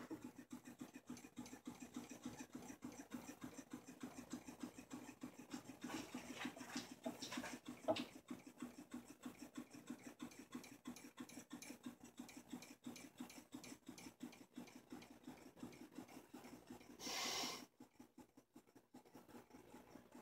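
Half-scale Essex caloric (Stirling-cycle hot-air) engine running with the torch off, its moving parts making a faint, fast, even ticking. One sharper click comes about eight seconds in, and a short hiss about seventeen seconds in.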